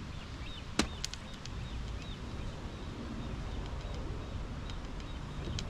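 Outdoor lakeside ambience: small birds chirping faintly over a steady low rumble. A single sharp click comes about a second in, followed by a few lighter ticks.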